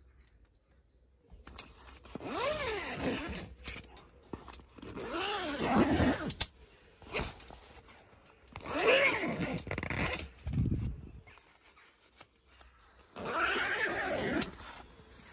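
Zip on a roof-top tent's fabric window being pulled open in four long strokes, each lasting about a second, with pauses between them.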